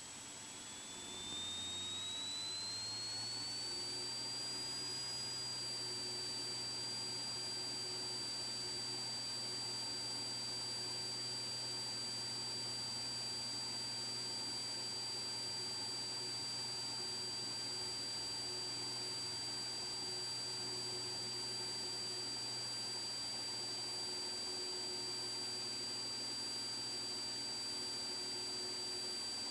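Cessna T206's turbocharged six-cylinder engine brought up to takeoff power. The sound swells about a second in, and a high whine rises in pitch over the next few seconds, then holds steady over a low drone.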